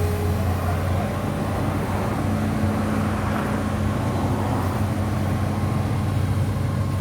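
Heavy construction machine's diesel engine running steadily, a constant low hum with no revving.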